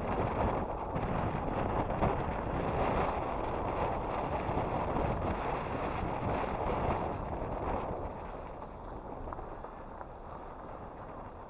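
Wind buffeting the microphone: a steady rushing noise that eases and grows quieter about eight seconds in.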